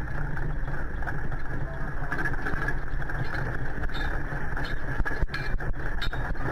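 Steady low rumbling noise with a hiss on top, picked up by an outdoor broadcast camera's microphone overlooking a city, with a few sharp clicks about two-thirds of the way through.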